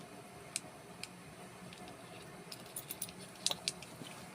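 Small light clicks and metallic taps from handling the padlock's small parts and retaining screw during reassembly: a few scattered ticks, then a quick cluster of them about three seconds in.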